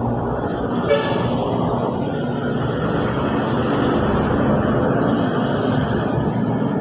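Road traffic passing close by: a steady rush of vehicle engines and tyres, with one short sharp sound about a second in.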